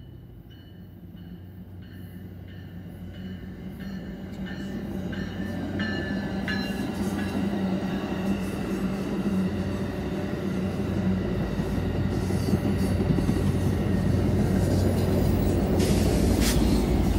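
Amtrak California passenger train rolling past, led by a cab car: wheel and rail noise and the rush of the passing bilevel cars, growing steadily louder as it comes close, over a steady low hum from the diesel locomotive pushing at the rear.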